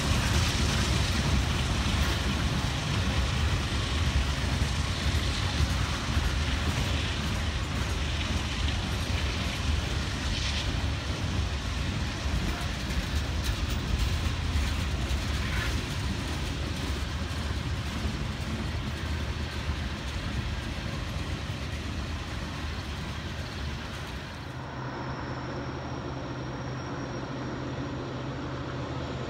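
Freight cars rolling past close by: a steady rumble and rattle of steel wheels on rail with an occasional clank. About 25 seconds in it cuts to a quieter, steady low hum of a diesel locomotive approaching from a distance.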